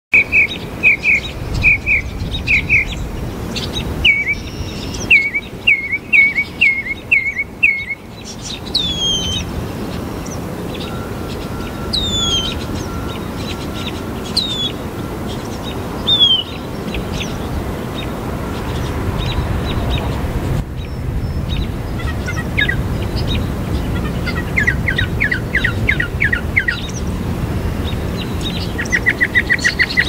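A mockingbird singing a varied string of borrowed phrases, each repeated several times. It opens with quick runs of short repeated notes, then gives a handful of falling whistles a second or two apart, and near the end fast runs of rapid notes. A steady low background noise runs underneath.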